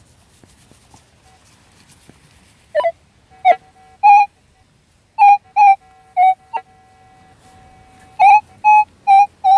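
Metal detector sounding about a dozen short, loud target beeps in irregular groups as its coil is swung back over a dug hole, a few of them warbling in pitch. The detector is picking up iron, which the detectorist puts down to the steel shovel lying nearby.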